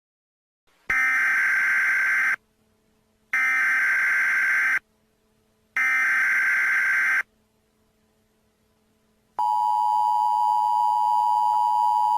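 Emergency Alert System tones: three loud data bursts of the SAME header, each about a second and a half long with a second's pause between, followed near the end by the steady two-tone attention signal.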